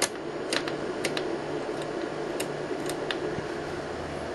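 Light, irregular clicks from the controls of an RF signal generator being turned and switched, about nine in the first three seconds. A steady equipment hum runs underneath.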